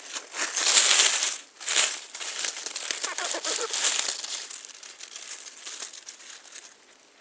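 Dry leaf litter rustling and crackling as a hand digs out and lifts a mushroom from the forest floor. It is loudest about a second in, then softer crackling fades away.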